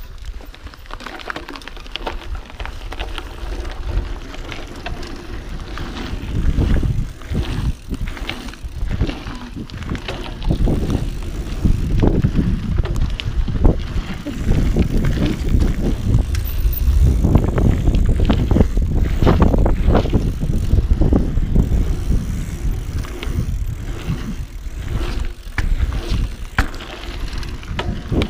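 Mountain bike riding a dirt pumptrack: tyres rolling over the packed-dirt rollers with wind buffeting the microphone, and many short clicks and rattles from the bike. It grows louder about six seconds in.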